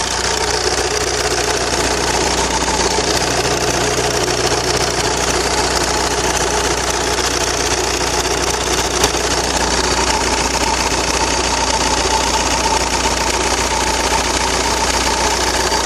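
Opel 1.9 CDTI four-cylinder turbodiesel idling steadily, picked up close to the engine. About ten seconds in a spinning sound rises over the idle, which the owner suspects comes from the flywheel.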